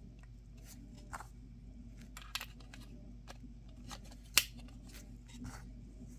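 Light plastic clicks and taps from handling a small plastic action-figure weapons case and its tiny rifle accessories, with one sharp snap a little past the middle.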